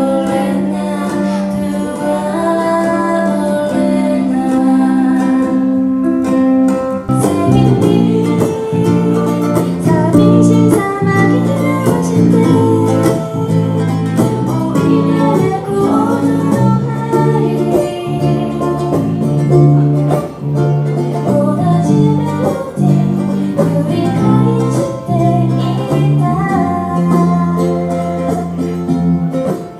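Music played on plucked guitar, with held notes at first and then a moving run of plucked notes.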